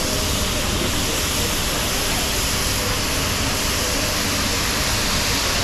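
Scallops and shrimp sizzling on a hot teppanyaki griddle: a loud, steady hiss as steam rises off the cooking surface.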